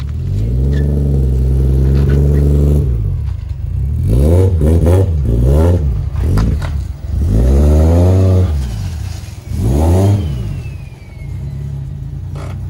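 Toyota Cressida's swapped-in 1JZ straight-six engine running. It holds steady at first, then is revved in several quick blips and two longer revs, and drops back to a steady idle near the end.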